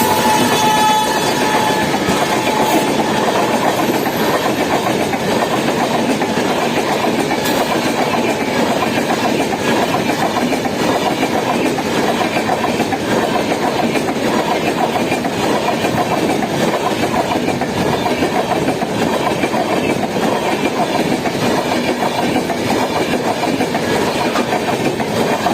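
Passenger train passing at speed, its coach wheels rattling steadily over the rail joints, with the tail of the train horn fading in the first second.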